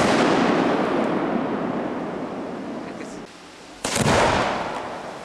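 A homemade aerial firework shell bursts with a sharp bang that echoes and dies away over about three seconds. About four seconds in, another shell is fired from its mortar on the ground with a second loud bang that echoes in turn.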